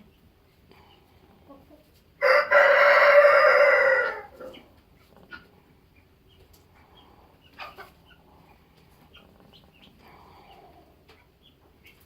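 A rooster crows once, loud, for about two seconds starting about two seconds in, the call falling away at the end. Otherwise only faint clucking and small scratching sounds.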